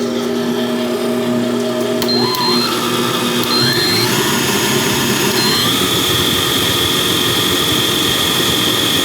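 Vevor 7.4-quart 600-watt stand mixer running with its wire whisk in heavy cream. The motor's whine steps up in pitch a few times over the first six seconds, then holds steady.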